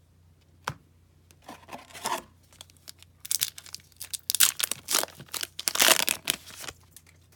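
Foil wrapper of a hockey card pack being torn open and crinkled as the stack of cards is slid out. It comes as several rustling bursts, loudest in the second half, after a single sharp tick less than a second in.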